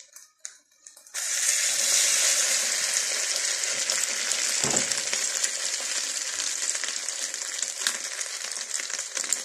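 Slices of giant puffball mushroom, coated in flour and egg, frying in hot oil in a pan: a loud sizzle starts suddenly about a second in and carries on steadily. A single dull knock comes about halfway through.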